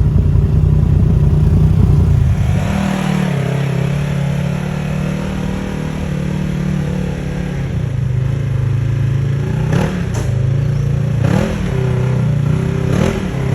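Side-by-side UTV engine running steadily at low revs, then blipped up and back down three times near the end.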